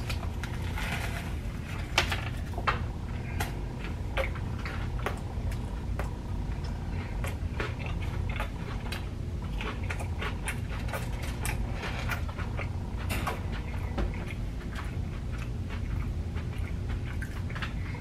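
Close-up biting and chewing of a fried chicken sandwich topped with crunchy Cheetos: many small crunches and wet mouth clicks, the loudest about two seconds in, over a steady low hum.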